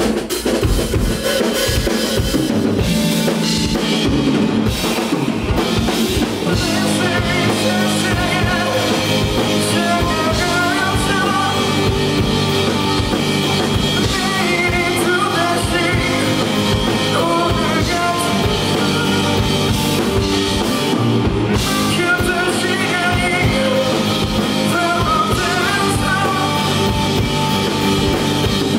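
Live rock band playing: electric guitars, bass guitar and drum kit, with a lead singer's voice over them.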